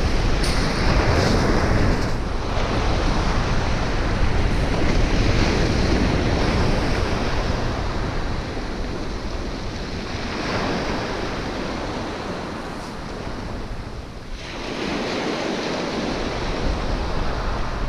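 Sea waves breaking and washing up the beach, with wind on the microphone. The surf swells and eases, dropping briefly about fourteen seconds in before building again.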